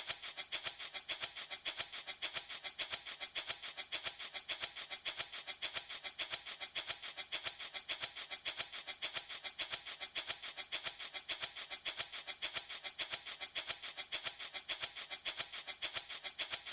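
Handmade baby rattle shaken in a steady, even rhythm: a bright, hissy shaker sound of many short rattling strokes, like a maraca.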